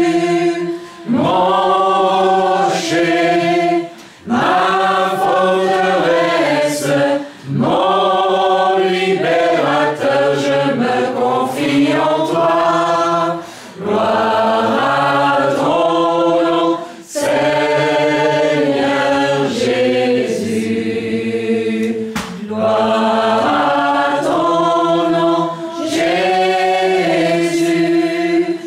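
Voices singing together in a worship song, in sung phrases a few seconds long with short pauses for breath between them.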